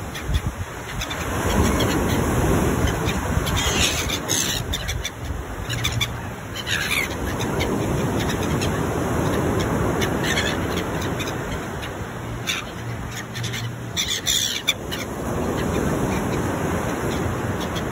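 Gulls calling in a handful of short, scattered squawks over the steady wash of waves breaking on a pebble beach.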